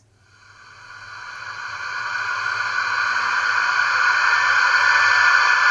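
Cooling-fan sound of a Märklin H0 class 218 diesel model locomotive (39187), played by its digital sound decoder through the model's small loudspeaker: a steady rushing whir that swells up from nothing over the first two seconds, like a fan spinning up, then holds even.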